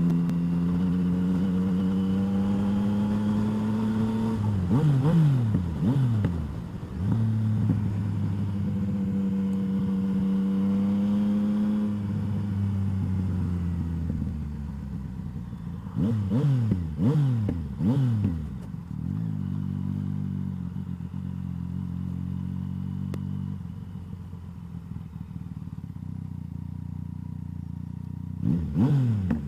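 Motorcycle engine heard from the rider's handlebar camera while riding. It runs steadily, then its speed rises and falls quickly several times, once about five seconds in and again around the middle. Near the end it drops to a lower, quieter running sound, with a short rev at the very end.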